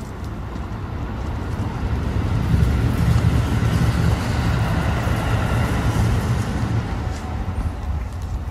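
A passing vehicle: a low rumble that builds about two and a half seconds in, holds, then fades toward the end.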